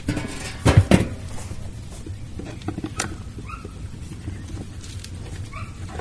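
Wooden hive frames knocking against a steel drum burn barrel as they go into the fire, a cluster of sharp knocks in the first second and a few lighter clicks later. Two short rising calls are heard, one about halfway through and one near the end.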